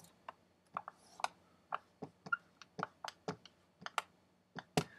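Dry-erase marker writing on a whiteboard: a quick string of short squeaks and taps as the letters are stroked out, with one sharper tap near the end.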